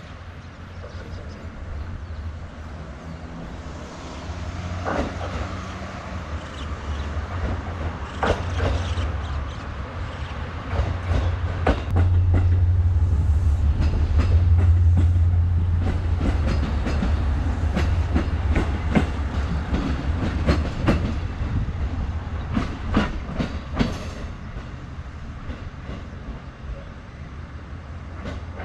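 KiHa 147 diesel railcar passing beneath, its engine rumble swelling to loudest about halfway through as it goes under, with wheels clicking over rail joints, then easing as it draws away.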